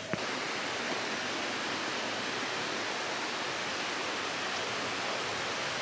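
Rushing water after heavy rain: a steady, even hiss of fast-flowing water with no distinct splashes.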